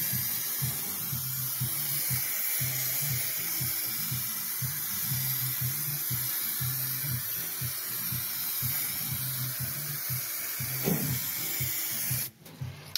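A steady spraying hiss that stops suddenly near the end.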